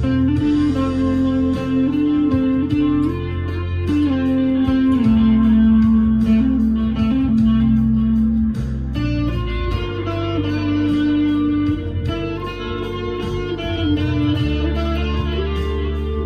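Harley Benton SC Custom II humbucker electric guitar played through an amp's crunch channel: picked melodic notes that move every second or so over ringing low notes.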